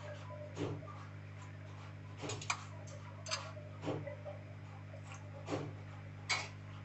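Pulao of rice, vegetables and water simmering in an open aluminium pressure cooker, with bubbles bursting in sharp pops at irregular spacing, about one a second. A steady low hum runs underneath.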